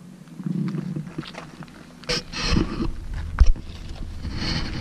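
Footsteps on a gravel trail, with a low rumble buffeting the microphone from about two seconds in.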